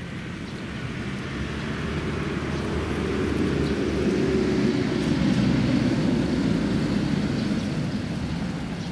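Low rumble of a passing vehicle that swells to a peak about halfway through and then fades.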